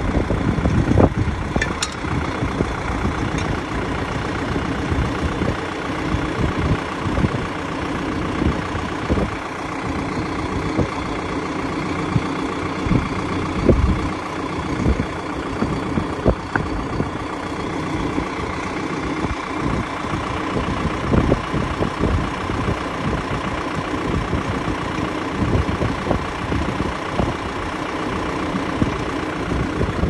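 Tractor engine idling steadily, with scattered sharp knocks now and then.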